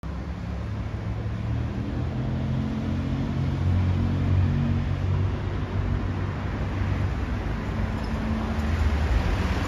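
City road traffic: motor vehicles running past on the street, with a low engine hum from a heavier vehicle swelling a few seconds in and again near the end.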